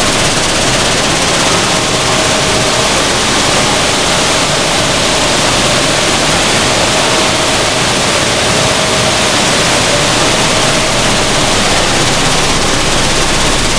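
Sunflower seed hulling and sieving machinery running: a loud, steady, even rush of mechanical noise, with a faint steady hum that fades out near the end.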